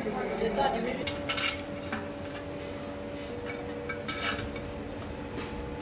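Several light metallic clinks of steel tools and engine parts being handled on a cast-iron engine block, over a steady machine hum.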